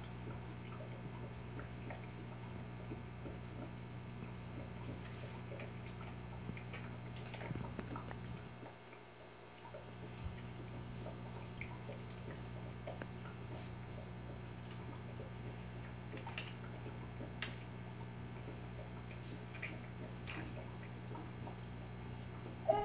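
Goldfish tank filter running, a steady low hum with water trickling and dripping into the tank. The hum dips briefly about nine seconds in.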